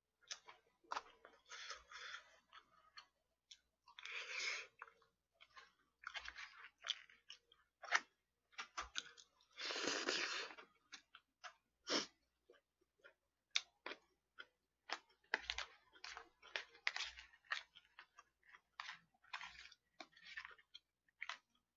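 A person eating from plastic takeaway containers: chewing and wet mouth sounds picked up close by a condenser microphone, with sharp clicks of a spoon against the containers and a louder, longer mouthful about halfway through.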